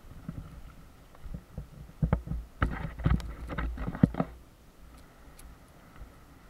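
Mountain bike rolling along a dirt trail, heard from a camera mounted on the bike: a low rumble of tyres on dirt, with a burst of sharp knocks and rattles from about two to four seconds in as the bike jolts over rough ground.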